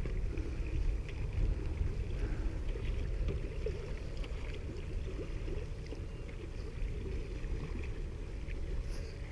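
A steady, muffled low rumble of wind on the camera microphone outdoors, with faint light ticks and no distinct events.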